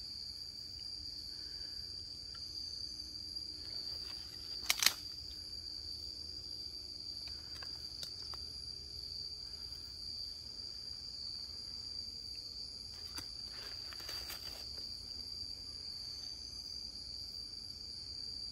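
Steady high-pitched trilling of a night insect chorus. Two sharp clicks about five seconds in, and a few fainter ones around two-thirds of the way through.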